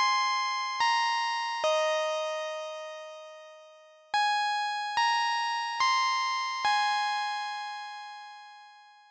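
Short intro jingle on a bell-like electric piano or synthesizer: two phrases of single notes, each struck note ringing out and fading, the last one dying away near the end.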